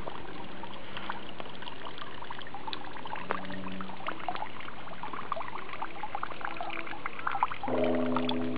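Water trickling and pouring, with many small drips and splashes. Near the end a chord of steady low tones comes in over it.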